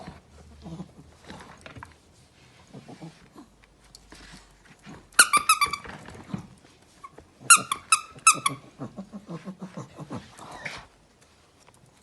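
A sleeping pet snoring and sniffing at once: soft rhythmic breaths throughout, with two short runs of high squeaky whimpering pulses, about five seconds in and again near eight seconds.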